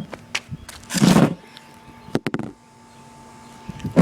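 Handling noise from a camera being moved and set down: a rustling burst about a second in and a quick cluster of sharp clicks and knocks a little past two seconds, with a faint steady hum afterwards.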